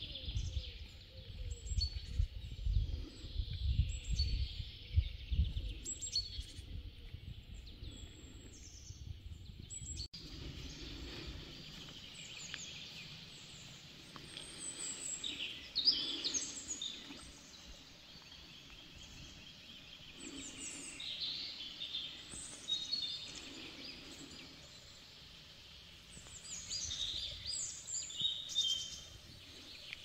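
Wild songbirds singing and chirping, many short high calls and trills overlapping one another. For the first several seconds a low rumble sits under the birdsong.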